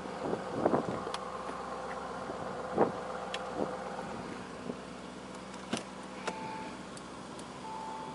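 Lamborghini Urus door being handled over a steady hum: a solid knock about three seconds in as the door is shut, a click as it is opened again, then short electronic chime tones near the end with the door standing open.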